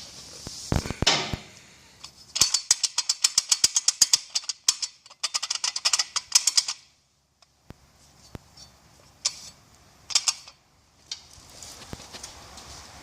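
Knocking from a 440 Chrysler V8 with a loose flex plate: sharp metallic knocks in quick runs of several a second, broken by short pauses and a few single knocks, the sign of the flex plate working loose against the crankshaft or torque converter bolts.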